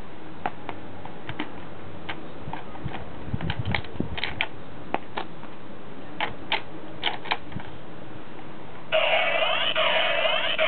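Scattered plastic clicks and clacks from handling a Kamen Rider OOO DX toy driver belt. About nine seconds in, the belt's loud electronic sound effect starts, with tones gliding up and down.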